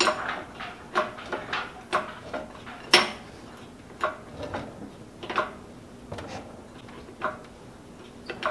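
A 2-ton hydraulic engine hoist being pumped by hand, giving a sharp metal clank about once a second, the loudest about three seconds in. The boom is rising to take up the weight of a heavy load hung from it by strap and chain.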